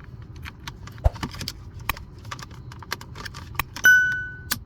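Irregular quick plastic clicks and rattles as console wiring connectors are handled and plugged together, with a single electronic beep about four seconds in, lasting under a second.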